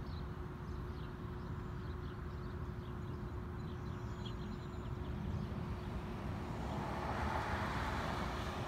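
Steady low outdoor rumble with a faint constant hum. A car drives past in the last couple of seconds, the loudest part.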